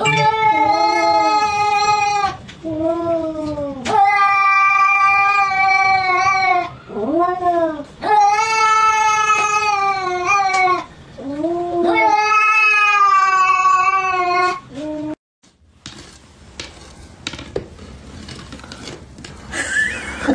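A cat yowling at another cat in a face-off: four long, drawn-out yowls with shorter wavering ones between them. The yowling cuts off about 15 seconds in, leaving faint clicks.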